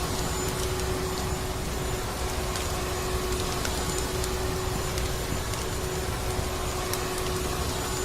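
Vacuum cleaner motor running steadily with a constant hum, with sparse faint crackles of a wood fire over it.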